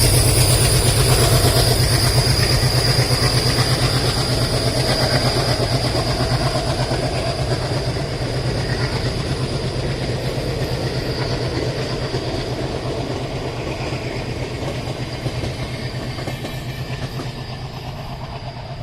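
A train passing on the rails: a rumbling, clattering run with a high steady whine above it, growing gradually quieter as the train moves away.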